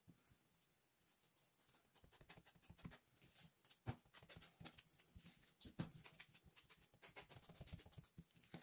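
Faint, irregular soft taps and small clicks as gloved hands press and pat a filled dough parcel flat on a board, with two louder taps about four and six seconds in.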